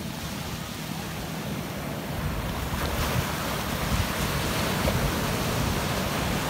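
Small sea waves breaking and washing up over the sand, a steady surf wash that grows louder about two seconds in. Wind buffets the microphone with an uneven low rumble.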